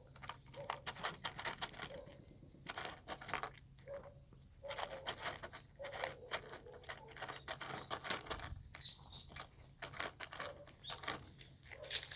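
A street cat eating, chewing its food in a string of quick crunches that come in bursts of about a second with short pauses between.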